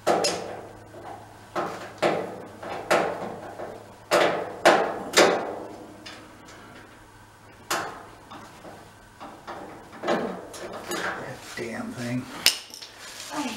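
Irregular metal clanks and knocks from the sheet-metal parts of a Char-Broil gas grill being handled and screwed together by hand, a sharp knock every second or two.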